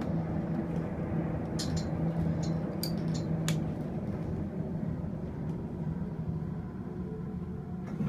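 Otis elevator car travelling, heard from inside the cab: a steady low hum and rumble, with a few faint clicks about two to three and a half seconds in.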